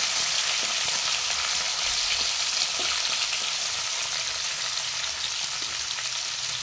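Chopped tomato, garlic-ginger paste and bay leaves frying in hot oil in a metal kadhai: a steady sizzling hiss, with a spoon stirring and scraping the pan at first.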